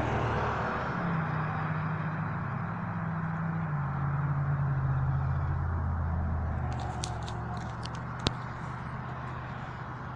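Low, steady engine hum, as of a motor vehicle running, whose pitch drops a little about four seconds in. A few light clicks follow, then one sharp tick about eight seconds in.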